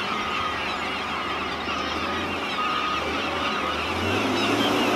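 A flock of gulls calling, many overlapping calls, over the steady drone of an engine that rises in pitch and gets a little louder about four seconds in.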